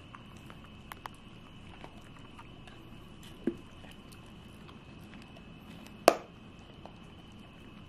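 Welsh corgi licking and nibbling a dried-meat treat: faint scattered wet smacks and small clicks, a dull thump about three and a half seconds in, and a sharp click, the loudest sound, about six seconds in.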